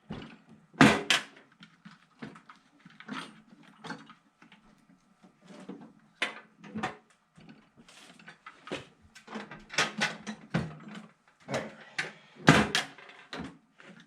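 Metal tool chest being shut and locked: an irregular run of clunks, knocks and rattles as it is closed and the lock is worked, the loudest knocks about a second in and near the end.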